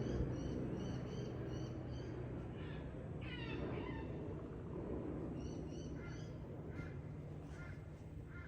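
Birds calling in bush ambience: runs of short, high, repeated chirps, with a harsher, descending call about three seconds in, over a steady low rumble.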